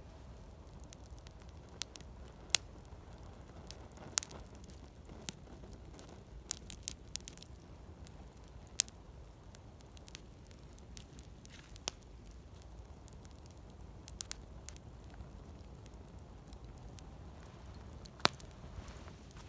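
Wood campfire burning, the wood crackling with irregular sharp snaps and pops every second or so.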